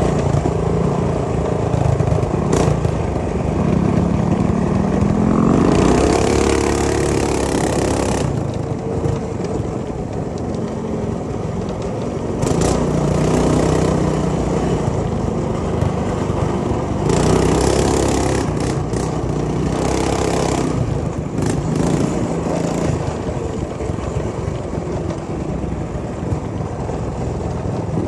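Megamoto 212 minibike's single-cylinder engine running under way, its pitch rising and falling again and again as the throttle is opened and eased off. Stretches of loud rushing noise come and go over it.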